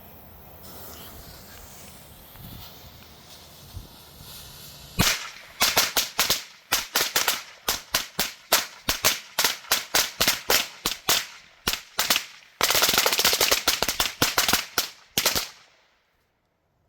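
A strip of Thunderbomb firecrackers going off. After about five seconds of quiet, a fast, uneven string of sharp bangs runs for about ten seconds. Near the end it runs together into a dense burst of crackling bangs, then stops suddenly.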